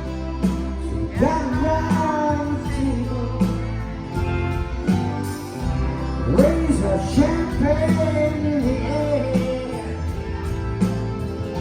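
A live rock band playing, with a steady bass, regular drum hits and a wavering lead melody line entering about a second in.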